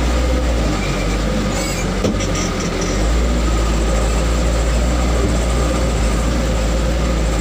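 A vehicle engine runs steadily with a deep drone as it drives a rough dirt track. The lowest part of the drone changes briefly about a second in and settles back near three seconds.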